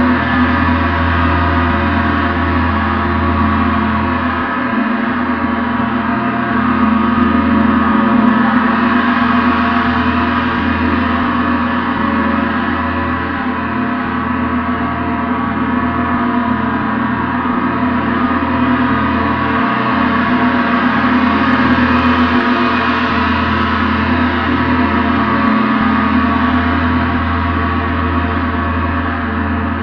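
Gong played continuously, a loud, dense wash of many overlapping ringing tones with no separate strikes standing out. Its loudness swells and eases gently a couple of times.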